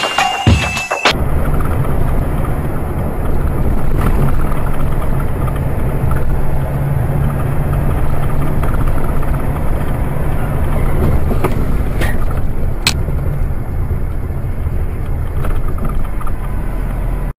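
Steady engine and road rumble of a car driving in traffic, as picked up by a dashcam, with a couple of sharp clicks about twelve and thirteen seconds in.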